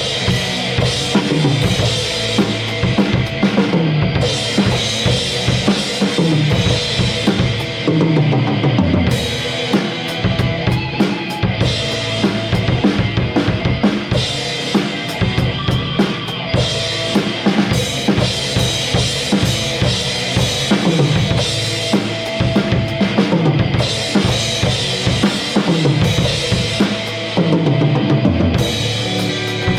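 Drum kit playing a rock groove, with kick drum, snare and cymbals, over a backing music track.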